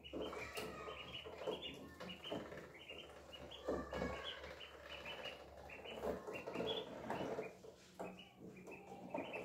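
Three ducklings peeping: a steady stream of short, high peeps, several a second, many dropping in pitch.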